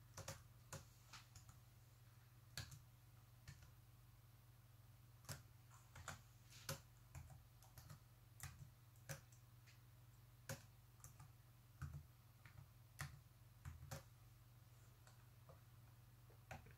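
Faint keystrokes on a Lenovo ThinkPad X131e laptop keyboard as a Wi-Fi password is typed: single, unevenly spaced key clicks, often one or two a second, over a faint low hum.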